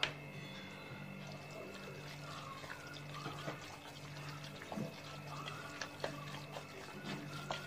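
Wet squelching of a hand kneading and stirring raw minced chicken filling round in one direction in a stainless-steel bowl, in small irregular squishes; a sharp click right at the start.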